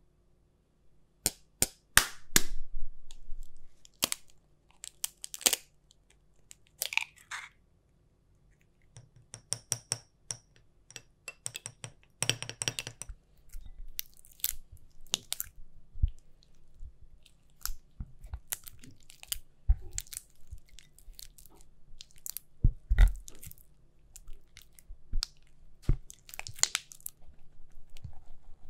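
Rubber spatula creaming softened butter in a glass bowl: irregular sharp taps and clicks of the spatula against the glass, with soft squishy scraping through the butter. Near the end powdered sugar is tipped in and worked into the butter.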